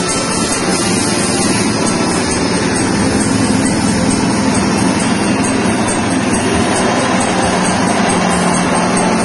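Small single-cylinder petrol engine running steadily, driving a stainless-steel soybean cracking and dehulling machine as it cracks soybeans for tempeh.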